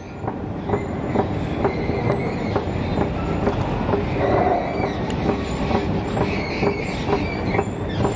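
Escalator running while being ridden: a steady mechanical rumble with a regular clacking of the steps, about two to three clicks a second.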